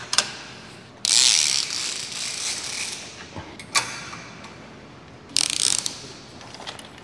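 A 180-degree side awning being pulled open by hand: its fabric rustles and swishes while the hinged arms give clicks and clacks. There are a few clicks at the start, a long swish about a second in, a single click near four seconds, and another rustling clatter near the end.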